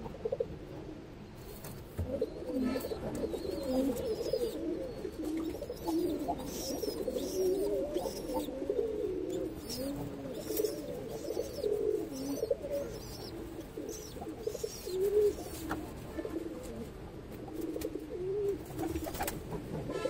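Domestic pigeons cooing, many low warbling coos overlapping one another throughout, with a few sharp clicks.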